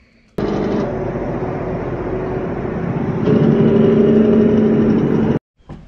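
Heavy truck engine running with a steady hum, getting louder about three seconds in; it starts and cuts off abruptly.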